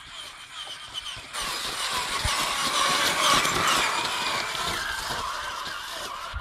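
Traxxas Summit RC truck's Neu 1717 1580 Kv brushless motor and drivetrain whining, the pitch rising and falling with the throttle. It grows louder about a second in as the truck comes close.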